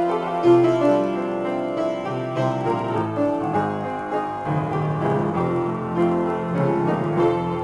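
Solo piano improvisation: a continuous run of sustained notes and chords.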